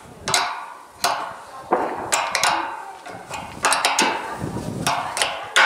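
A 10 mm spanner working the bolt on a satellite dish's metal LNB support arm, giving a series of sharp, irregular metal clicks and clinks as the nut is tightened.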